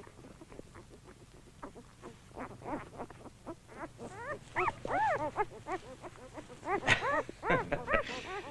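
Newborn Akita puppies squeaking and whimpering: many short, high calls that rise and fall in pitch, sparse at first and growing more frequent and louder from about halfway through.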